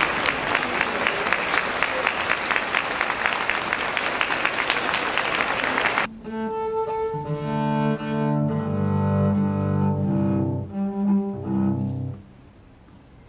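Audience applause, cut off abruptly about six seconds in by a cello playing a slow phrase of sustained, bowed low notes, which stops about a second before the end.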